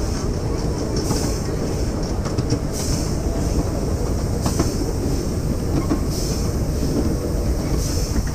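Ride-on miniature railway train rolling along the track: the riding cars' wheels rumble and clatter over the rails steadily, with a few sharp clicks and a higher hiss that swells about every one and a half seconds.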